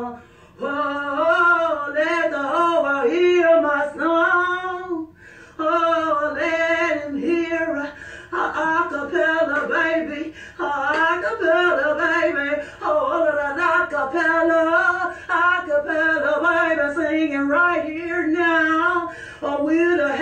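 A woman singing, in melodic phrases with short breaks between them.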